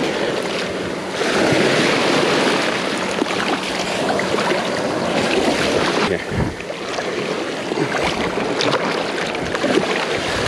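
Ocean surf washing up the beach, a steady rush that swells about a second in, with wind gusting on the microphone.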